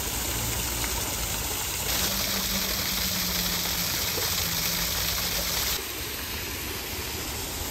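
Small waterfall splashing down a rock wall into a pond: a steady rush of falling water, a little quieter from about six seconds in.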